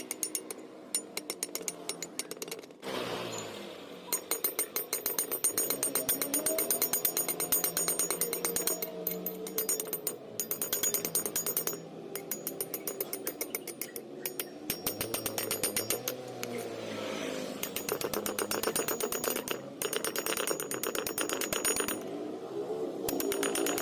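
Stick (MMA) welding arc burning a 3.2 mm electrode on a Daiden Zero inverter welder. It crackles and sputters in a fast, irregular rattle and breaks off briefly a few times.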